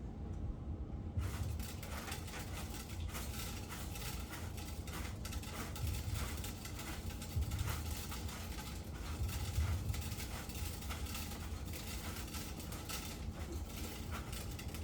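Toy farm machinery and loose seeds being handled, giving a dense run of small clicks and rattles over a low rumble.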